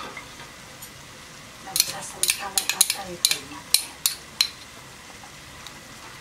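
A metal spoon scraping and tapping tomato paste off a small dish into a pot: a quick, uneven run of a dozen or so sharp clinks from about two seconds in until about four and a half seconds in. Underneath is a faint steady sizzle of vegetables and flour roux frying in the pot.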